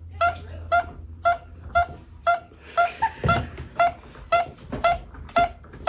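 A dog coming round from anesthesia giving short, high whimpering cries over and over in a steady rhythm, about two a second.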